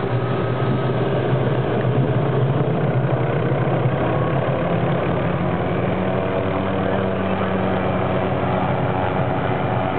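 Hughes 500 helicopter running on the ground: its Allison turboshaft engine and turning main rotor make a steady, loud hum, whose low tone steps up in pitch about halfway through.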